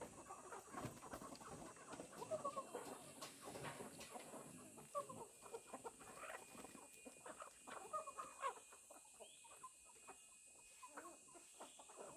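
Chickens clucking quietly, short repeated calls with scattered small clicks, thinning out near the end.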